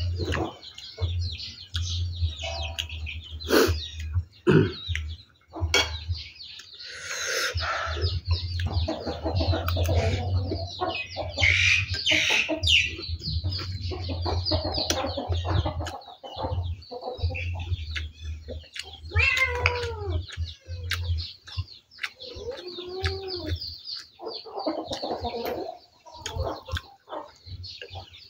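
Chickens clucking and small birds chirping, with the close sounds of someone eating: chewing and a metal spoon clicking against a bowl.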